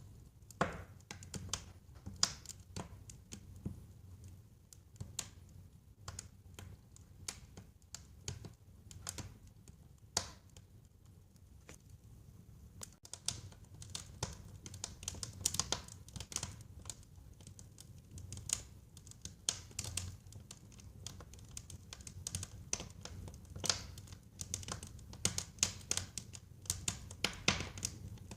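Wood fire burning in a fireplace, crackling and popping irregularly over a low rumble, the pops coming thicker in the second half.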